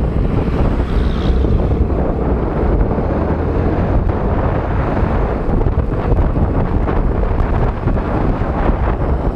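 Wind buffeting the microphone of a camera on a moving motorcycle: a loud, steady low rumble that swells and eases in gusts, with the ride's road and engine noise buried under it.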